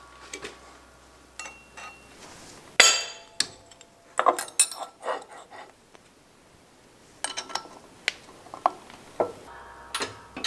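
Scattered metal clinks and knocks as a Ford Model A distributor housing and press tooling are moved about and set up on a steel press plate. Some clinks ring briefly. The loudest knock comes about three seconds in.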